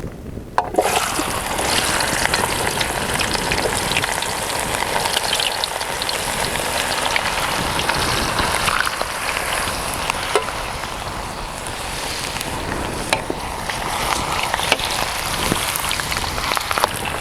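Cut potatoes deep-frying in hot oil: a steady sizzle with scattered crackles and pops, starting abruptly about a second in.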